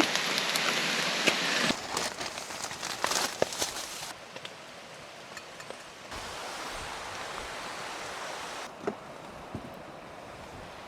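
Steady rain falling, an even hiss with scattered drips and light taps. The hiss changes level abruptly a few times, loudest in the first couple of seconds.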